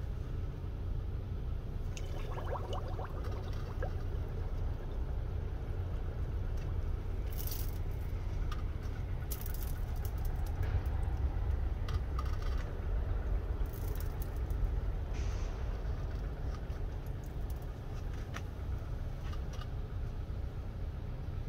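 Red-hot leaf-spring steel blade being quenched in a barrel of liquid, hissing and crackling as it goes in about two seconds in. Scattered sharp pops and bubbling follow as it is held and swirled under the surface, over a low steady rumble.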